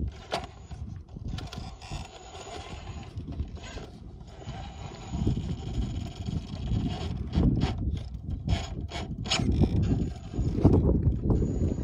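An RC rock crawler's electric motor and geared drivetrain whining as it crawls slowly over rock, with sharp clicks and scrapes from the truck on the rock, most of them in a cluster late on, over a low rumble.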